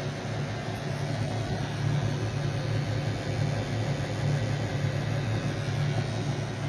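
Kearney & Trecker Milwaukee 2D vertical rotary-head milling machine running under power: a steady motor and gear hum with a low drone, a little louder from about two seconds in.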